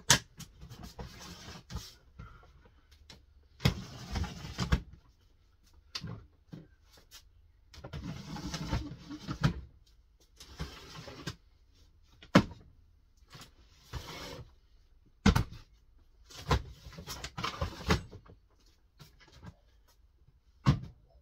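Rummaging through clear plastic storage boxes: boxes and lids scraping and knocking, and the contents rustling, in irregular bursts with a few sharp knocks between quiet gaps.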